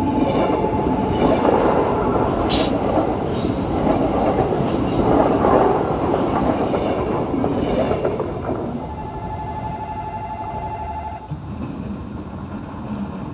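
A KTX-EUM train passes over a railway level crossing: its running and wheel noise is a loud rush for about eight seconds, then fades. The crossing's warning bell rings steadily beneath it and stops about eleven seconds in.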